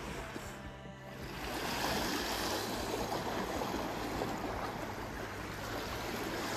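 Calm sea washing and lapping against shoreline rocks, a steady watery hiss that gets louder about a second and a half in.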